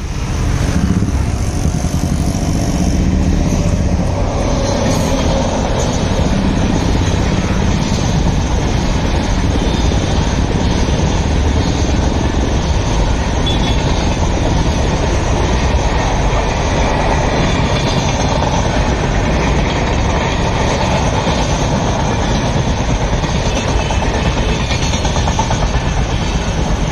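Express passenger train of LHB coaches passing at speed: a loud, steady rumble of wheels on the rails. It starts suddenly about half a second in and holds evenly throughout.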